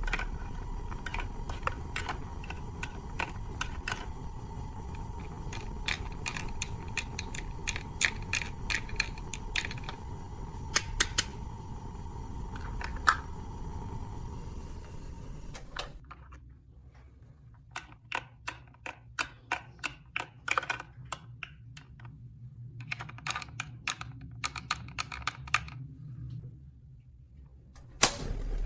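Small plastic toy pieces being handled, giving irregular clicks and taps. A steady background hum runs under them and cuts off abruptly a little over halfway through.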